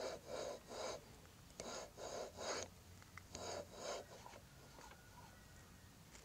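Billet aluminium flywheel on a Predator 212cc engine being turned by hand with the ignition coil removed: a series of short, soft rubbing strokes, mostly in pairs, through the first four seconds, fainter after that.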